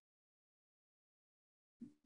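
Near silence, with only a very faint, brief sound just before the end.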